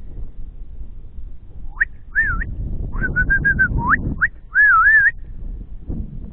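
A person whistling a call to come: a rising whistle, a wavering note, a quick run of short notes, two upward swoops, then a loud warbling note, over a low rumble.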